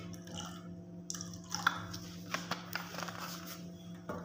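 Vinegar poured from a plastic bottle into a glass bowl of yogurt: a faint trickle, followed by a few small clicks and ticks as the pour ends.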